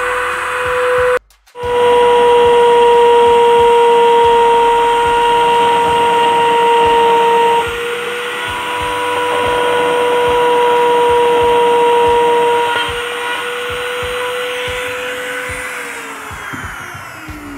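Mini rotary grinder cutting through PVC pipe, a steady high-pitched whine with a rasping grind, breaking off briefly about a second in. Near the end it is switched off and spins down with a falling whine.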